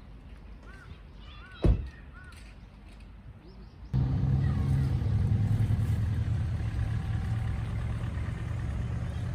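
Quiet outdoor background with a single sharp click, then, after an abrupt change about four seconds in, a steady low hum of a running vehicle engine.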